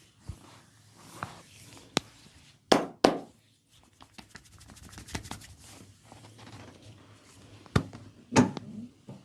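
Thai massage: hands rubbing over skin, broken by sharp cracks, a loud pair about three seconds in and two more near the end, with a run of fine quick ticks in between.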